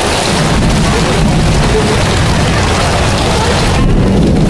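Torrential rain pouring down in a steady, loud roar, with wind buffeting the microphone and adding a heavy low rumble.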